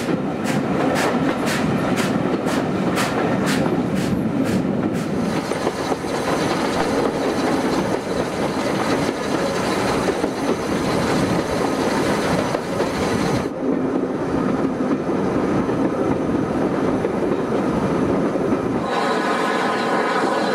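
Steam train hauled by Bulleid West Country Pacific 34046 Braunton running along the line, heard from an open carriage window: a regular beat of about two to three strokes a second for the first five seconds, then a steady rumble of wheels on rail. Near the end a steady sound with several pitches comes in over the rumble.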